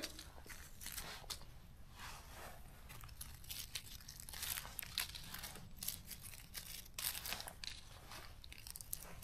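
Faint, irregular rustling and crunching of dry fallen leaves as mushrooms are picked by hand from the forest floor.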